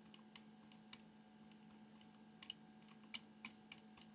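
Near silence: a faint low hum with a handful of faint, irregular clicks from a computer being operated to advance pages.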